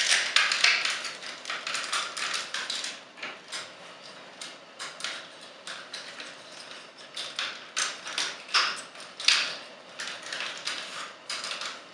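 Hard plastic parts of a Transformers Sixshot action figure clicking and tapping as they are handled, rotated and pegged together during a transformation. The clicks come irregularly, thickest in the first few seconds and again around eight to ten seconds in.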